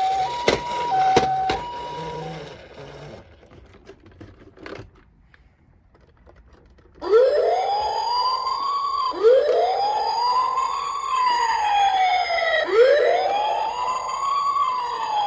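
Toy ambulance's electronic siren: a two-tone hi-lo siren with a couple of sharp clicks for the first two seconds, then a quieter stretch with faint knocks, then about seven seconds in a wailing siren that rises and falls, three cycles.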